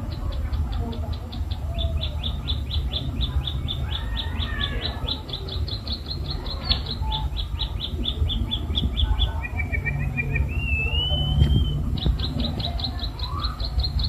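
White-headed munia (emprit kaji) singing a klik-klik-style song like a bar-winged prinia's: a long fast run of sharp, high chip notes. About two thirds of the way through it breaks into a lower trill and a rising whistle, then the quick chips start again.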